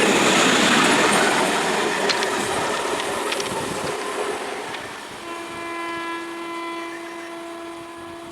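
Noise of a train running past on the rails, with a few sharp ticks, fading over the first few seconds. About five seconds in, an Indian Railways train horn starts a long blast on one steady pitch that holds on.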